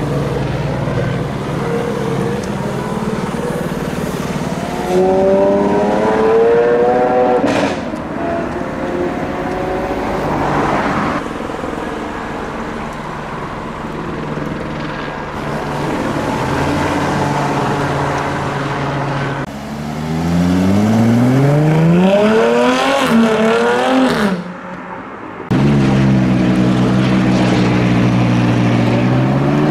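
Supercar engines revving and accelerating away one after another, among them a Lamborghini Aventador S and a Porsche 918 Spyder, with repeated rising rev sweeps. Near the end a McLaren 675LT's V8 idles and then revs up.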